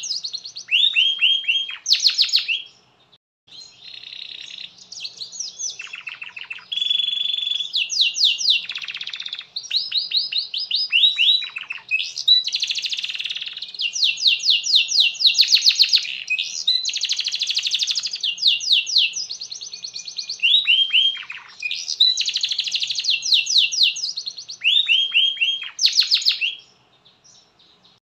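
Canary singing a long, nearly continuous song of rapid trills and rolls, broken by runs of quick falling notes. It pauses briefly about three seconds in and again just before the end.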